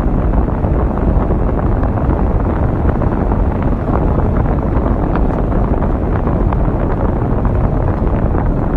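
Loud, steady wind noise buffeting the microphone: a dense rumbling rush with no words over it.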